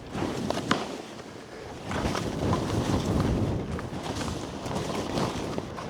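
Wind rushing over the camera microphone during a downhill ski run, with the hiss and scrape of skis on snow, louder from about two seconds in.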